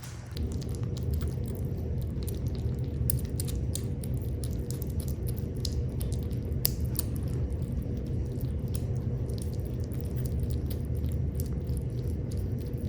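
Small kittens eating, with many quick chewing and smacking clicks over a steady low rumble that starts just after the beginning.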